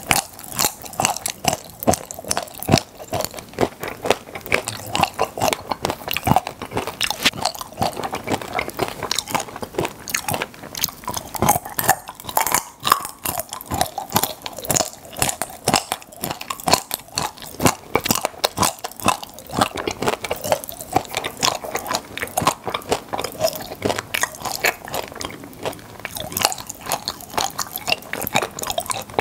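Close-miked chewing of popping-candy chocolates: wet chewing with a dense, rapid stream of small crunching and crackling clicks.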